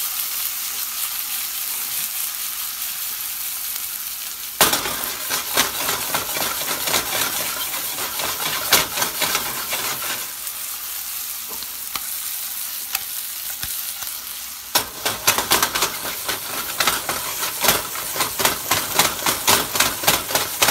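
Chicken breast frying in avocado oil in a skillet: a steady sizzle with sharp crackling pops of spitting oil. There is one loud crack about four and a half seconds in, and the crackle grows denser over the last six seconds.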